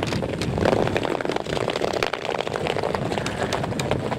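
Ice skate blades scraping and clicking on natural ice in a rapid, irregular stream, over a steady rush of wind.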